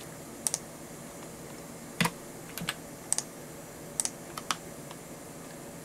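Computer keyboard keys pressed one at a time, about six separate clicks spaced roughly half a second to a second apart, some in quick pairs, over a low steady background hiss.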